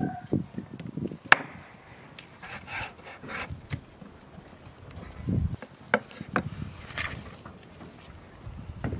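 Knife cutting raw chicken on a wooden cutting board: irregular knocks and clicks of the blade on the board, a sharp click about a second in and a cluster of knocks later, with soft rubbing as the meat is handled.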